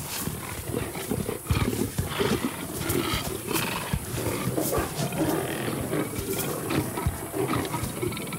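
African lions snarling and growling in a continuous, irregular run as the males fight over a kill.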